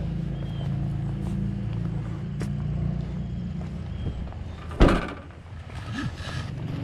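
Car engine running with a steady low hum, then a single loud thud about five seconds in, after which the engine hum falls away.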